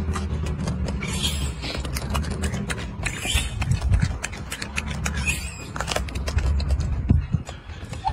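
Golden snub-nosed monkey chewing a bitten apple: crisp crunching and clicking bites over a low steady hum.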